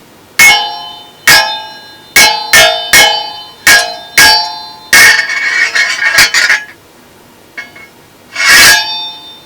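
Metal struck hard again and again, each clang ringing on at the same pitches, with a longer rattling clash about five seconds in and a last clang near the end: live foley of metal clashes for a short fight scene.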